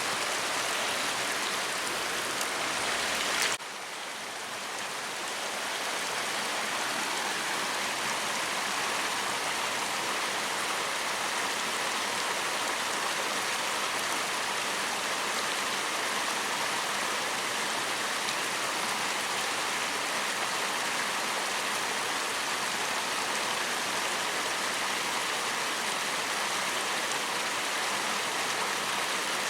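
Steady rush of flowing stream water. About three and a half seconds in there is a sharp click, after which the rush drops and builds back up over a couple of seconds.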